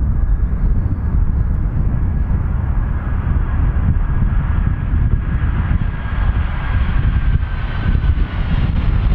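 Boeing 747-400F freighter's four jet engines on final approach: a loud, steady low rumble with a faint high whine that slowly falls in pitch as the aircraft passes.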